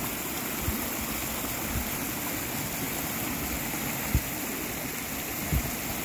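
Swollen, muddy creek rushing steadily. Three short, dull thumps come through, the loudest about two-thirds of the way in.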